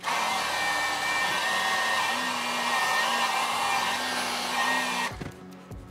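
Electric heat gun blowing hot air steadily onto the solder-seal heat-shrink connectors of a wire splice, with a faint whine over the rush of air. It shuts off about five seconds in, followed by a couple of light knocks.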